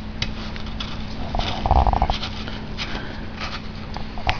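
Hands handling parts of a seized small Tecumseh engine: scattered light clicks and knocks over a steady low hum, with a brief mid-pitched sound about a second and a half in.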